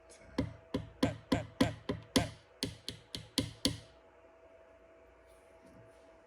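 A pin punch being struck about twelve times in quick succession, roughly three taps a second, each with a short ring: tapping a trigger pin into a Glock 26 frame to even it up.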